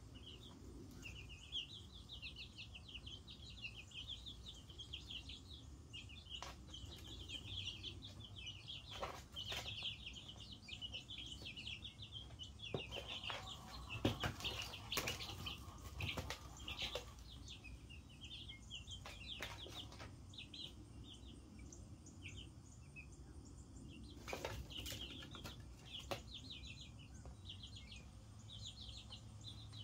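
A brood of chicks a couple of weeks old peeping almost continuously in quick high chirps, with scattered sharp taps and knocks among them and a low steady hum underneath.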